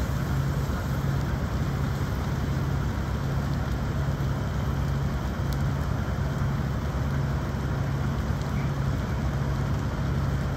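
Semi truck's diesel engine idling close by: a steady low drone over a constant rushing noise.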